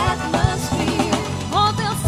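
Background music with a steady beat, pop-style, with a melody line that may be sung.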